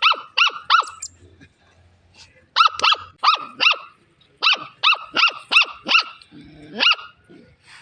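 Dog barking rapidly and high-pitched, in quick runs of three to five sharp barks with short pauses between, ending with one longer bark.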